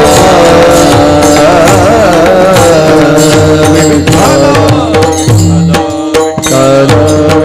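Kirtan music with no singing: a wavering melody over a steady held drone, with hand-drum strokes and small cymbals keeping the beat. The drumming stands out more about four seconds in.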